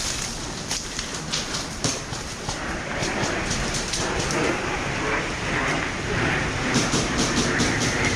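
Footsteps and rustling through dry undergrowth, with a run of short sharp crackles and clicks from leaves, twigs and gear; it grows fuller and louder after about three seconds.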